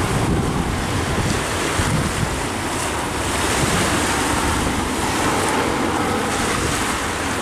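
Wind buffeting the microphone over a steady rushing noise.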